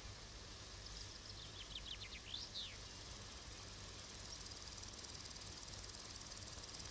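Faint field insects, crickets or grasshoppers, chirping steadily and growing a little louder toward the end. A short run of quicker, higher chirps comes about two seconds in, over a steady low hum.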